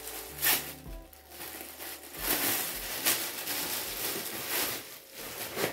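Clear plastic garment bag crinkling as it is handled and pulled open, in a run of irregular rustles, over background music.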